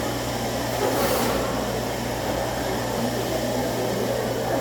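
Cafe background noise: a steady low hum under a dense, dull murmur of the room, with a brief hiss about a second in.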